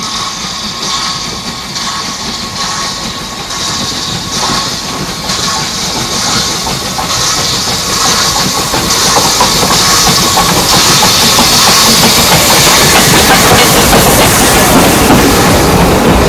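Narrow-gauge steam locomotive and train approaching and passing close by, its regular exhaust beats growing steadily louder, then the carriages rolling past with wheels clacking over the rail joints near the end.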